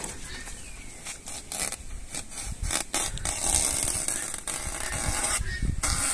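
Banana leaves being pulled off and handled: an irregular crackling, rustling scrape that gets louder partway through.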